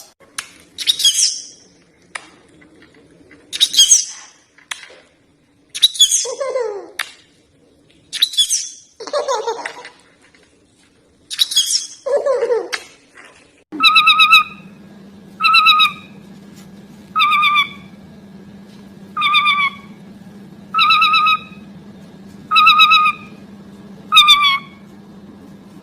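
Parrots calling. First, a run of loud calls, each sweeping steeply down in pitch, every two to three seconds. Then a single bird repeats a short, even call eight times, about every second and a half, over a steady low hum.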